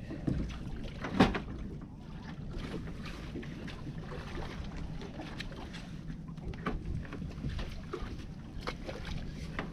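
Low steady rumble of a fishing boat sitting on the ocean, with wind on the microphone. Scattered small clicks and knocks run through it, with one sharp knock about a second in.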